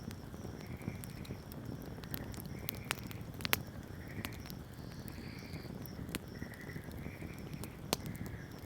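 Wood campfire burning with a low steady rumble and frequent crackles and sharp pops, the loudest about three and a half seconds in and near the end. Short chirping calls repeat about once a second in the background.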